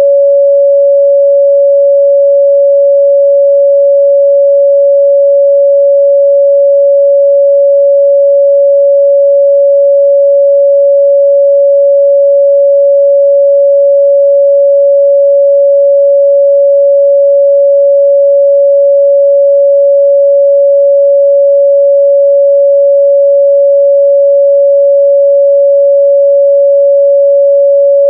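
A steady, loud 562 Hz pure sine-wave test tone, one unchanging pitch with no other sound, used for checking a speaker's or headphone's midrange response.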